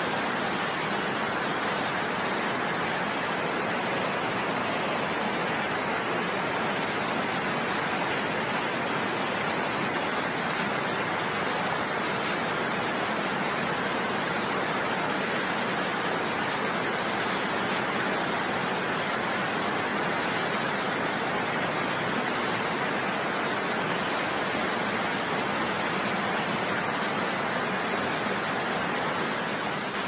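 Waterfall and rocky stream rushing: a steady, even hiss of falling and running water that does not change.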